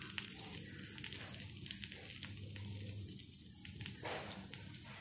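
Coconut oil sizzling faintly on a dosa pan under frying rice-flour rottis, with scattered small crackles. There is a short louder burst about four seconds in.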